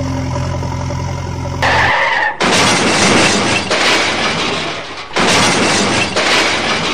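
A steady engine-like hum for about two seconds, then loud crashing and splashing noise, dipping briefly about five seconds in, as toy construction vehicles tumble off a stony bank into water.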